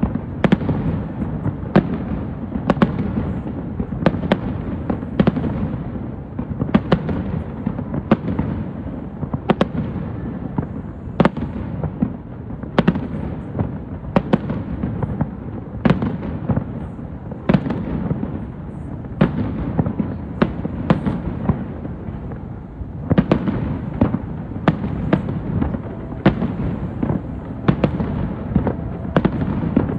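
Fireworks show: aerial shells bursting as sharp bangs, about one or two a second, over a continuous low rumble of booms.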